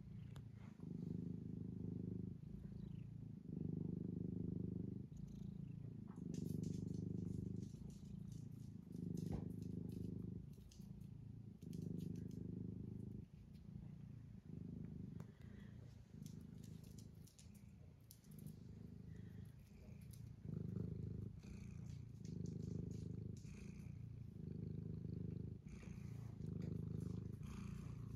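Domestic cat purring, a low purr that swells and eases in regular waves with its breathing, about one every one and a half to two seconds. It is a little fainter through the middle stretch.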